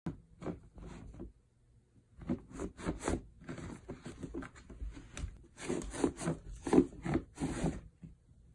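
Welsh corgi scratching and digging at a terry-cloth towel on a rug with its paws, a series of quick scraping strokes: nesting behaviour, working its bed into shape before lying down. A short burst, a pause of about a second, then a longer run that stops near the end.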